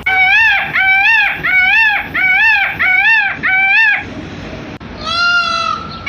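Indian peafowl calling: a run of six loud honks in quick succession, each rising then falling in pitch, then after a short pause one longer, flatter call near the end.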